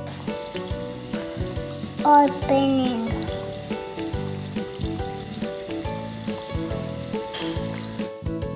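A fizzing dinosaur egg tablet dissolving in liquid, a steady fizzing hiss over soft background music. About two seconds in there is a brief louder sound that falls in pitch.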